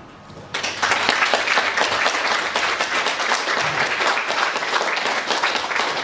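Audience applauding: the clapping breaks out about half a second in, as the last plucked chord dies away, then goes on at an even level.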